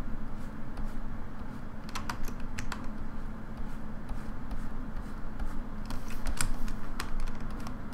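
A few scattered computer keyboard clicks, irregularly spaced, over a steady low electrical hum.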